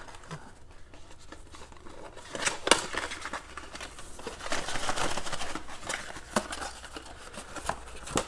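A cardboard trading-card retail box being handled and turned over in the hands, with its plastic wrap crinkling and scattered sharp taps and clicks. The rustling is busiest through the middle, and the sharpest tap comes a few seconds in.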